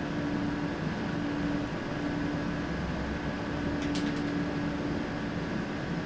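Steady hum and fan noise of electrical equipment, with a low tone that breaks off and comes back every second or so, and a brief soft rustle about four seconds in.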